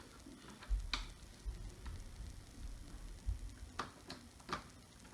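Scattered light clicks and taps with a few dull knocks, from wood pieces and tools being handled between screws.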